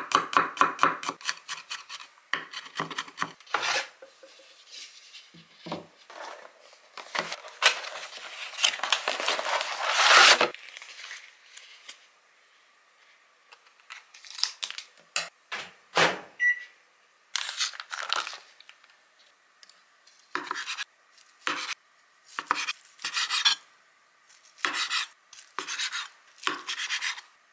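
A kitchen knife mincing garlic on a wooden cutting board in a rapid, even run of strikes that stops within the first couple of seconds. Then the plastic wrapping of a soondae (Korean blood sausage) rustles and is cut open with scissors. Near the end the knife slices through the soondae in about eight separate knocks on the cutting board.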